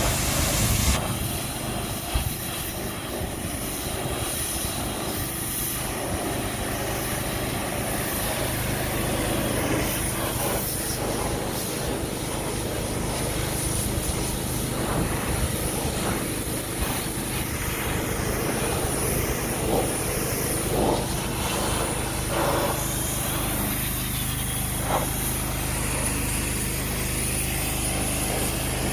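Pressure washer running steadily, a constant motor hum under the hiss of the spray.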